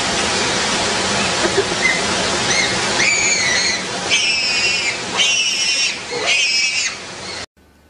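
Chimpanzees screaming: four shrill, wavering screams about a second apart over a steady rushing background, ending abruptly near the end.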